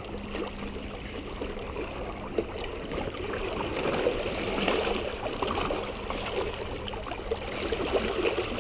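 Water sloshing and lapping against shoreline rocks in an uneven churn, with a splash near the end as the hooked striped bass thrashes at the surface. A faint steady low hum runs underneath and stops just before the end.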